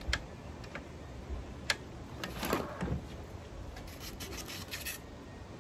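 Handling noises from a sliding miter saw being set up: a few sharp clicks, a short stretch of rubbing and scraping a little past two seconds in, then a run of light clicks near the end.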